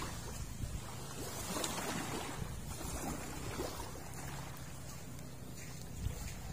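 Small sea waves washing on a sandy shore, over a low steady hum and light wind on the microphone.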